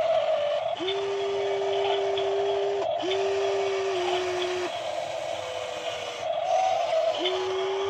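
RC model Kobelco SK200 excavator's electric motors whining as the boom and arm move, over a steady motor hum. The whine comes in spells: on about a second in for two seconds, again straight after with a small drop in pitch, and once more near the end.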